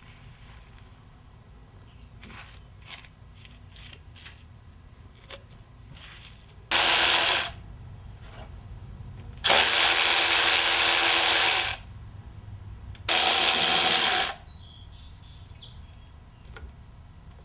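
Three loud, steady hissing bursts from a compressed-air blow gun, each starting and stopping abruptly: a short one, a longer one of about two seconds, then a medium one. It is blowing debris off the engine's intake area during cleaning.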